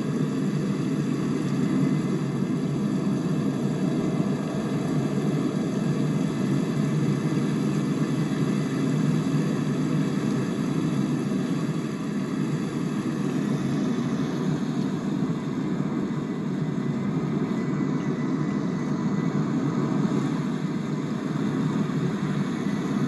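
Steady rumble of distant jet aircraft engines, even in level throughout, with no single aircraft passing close.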